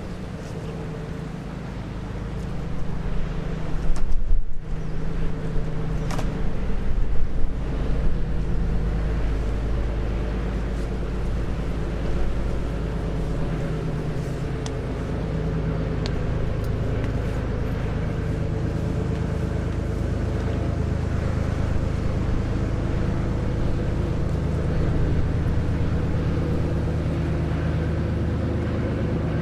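Steady low drone of a sand barge's diesel engine, with wind gusting on the microphone a few seconds in.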